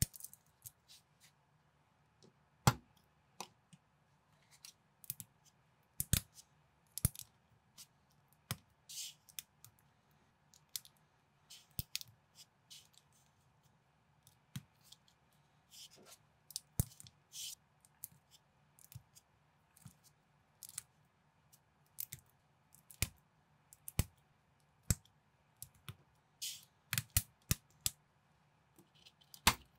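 Plastic LEGO-compatible bricks clicking and snapping together as small parts are pressed on by hand, in irregular clicks with a few sharper snaps.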